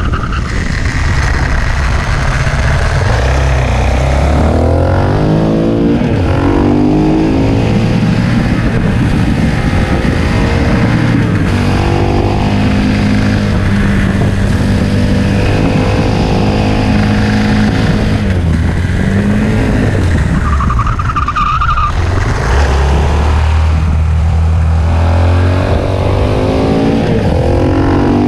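KTM 690 SMC-R's single-cylinder four-stroke engine running under way, its revs rising and falling repeatedly, with a few steadier stretches in between.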